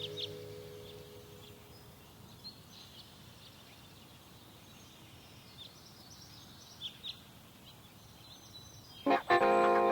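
Background music fades out, leaving faint outdoor ambience with scattered short, high bird chirps. Loud music comes in about nine seconds in.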